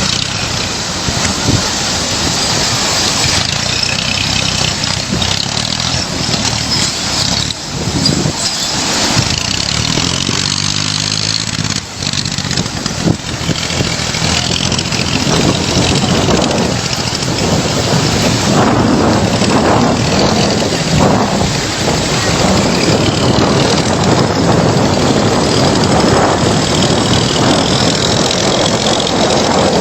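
Swollen flood river rushing, a loud, steady roar of water, with a brief pitched hum about ten seconds in.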